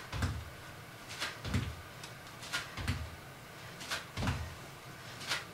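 Feet landing on the floor during repeated lunge hops: a dull thud about every second and a half, each with a brief hiss just before it.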